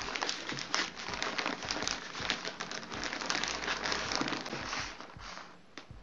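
Wrapping paper crinkling and rustling under hands pressing and rolling a paper-wrapped present on a table; it dies down near the end.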